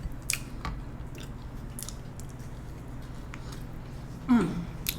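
A person chewing food close to the microphone, with scattered wet mouth clicks. There is a brief hummed vocal sound near the end.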